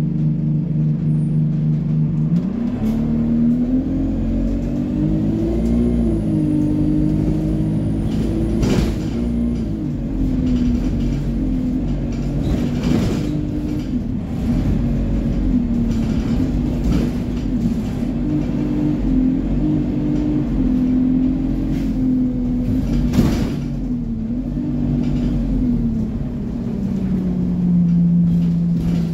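Single-deck bus engine heard from inside the passenger saloon: steady at first, then pulling away about two seconds in, its note rising and shifting as the bus gathers speed, with a few sharp knocks and rattles along the way. Near the end the note drops back to a steady low hum.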